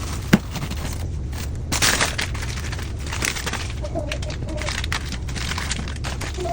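Sharp knocks and clatter of objects being handled, with short bursts of hiss in between and a steady low hum underneath.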